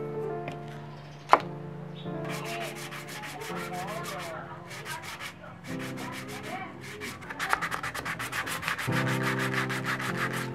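Sandpaper rubbing by hand on a small coconut-shell piece in quick back-and-forth strokes that begin about two seconds in and grow faster and louder near the end. A single sharp knock comes about a second in, and soft background music with piano plays throughout.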